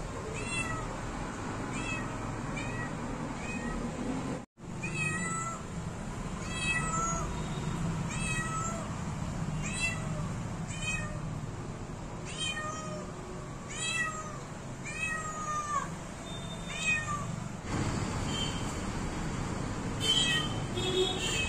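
Tabby cat meowing over and over in short calls, roughly one a second, with a brief dropout in the sound about four and a half seconds in.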